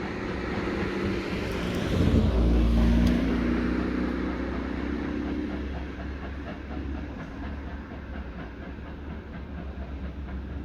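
Train running on the rails, its rumble swelling to a peak about two seconds in and then slowly fading.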